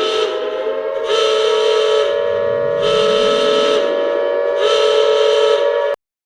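A loud, horn-like alarm: a steady two-note drone with a brighter blast swelling in about every two seconds, cutting off abruptly near the end.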